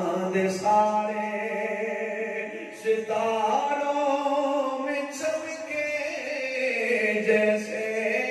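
A man's voice chanting religious verse in a drawn-out melodic recitation, with long held notes.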